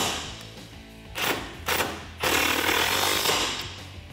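Milwaukee Fuel cordless impact tool hammering a 15 mm bolt tight: a few short bursts, then a longer run of about a second and a half past the middle. Background music plays underneath.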